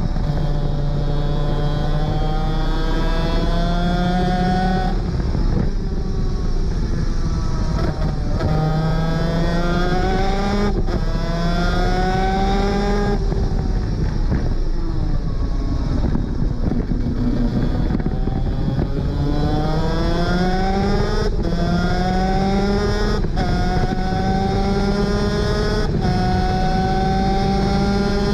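Superkart 250's two-stroke engine, heard onboard, accelerating hard through the gears. The pitch climbs and drops at each upshift, falls away through the middle under braking, then climbs through several more upshifts, over steady wind rush.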